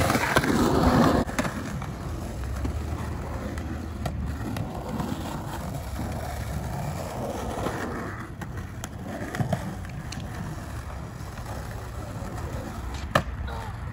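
Skateboard wheels rolling over concrete, loudest for the first second or so and then a steadier, quieter rumble. A few sharp clacks of the board hitting the ground are heard, the last two close together near the end as a board flips and lands.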